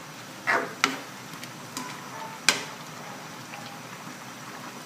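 Menudo stew simmering in a wok with a steady hiss, and a cooking utensil knocking against the wok a few times as it is stirred.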